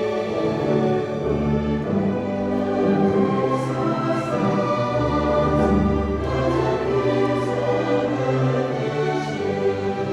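High school orchestra playing a slow classical passage of held, overlapping notes, with deep bass notes coming in about a second in and again midway.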